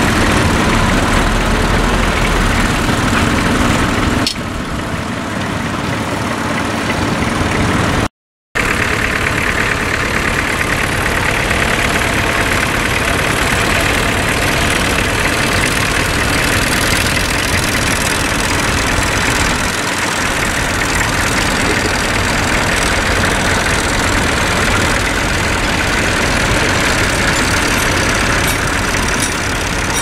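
Vintage tractor engines running steadily under load as they pull ploughs, with the sound cutting out briefly about eight seconds in.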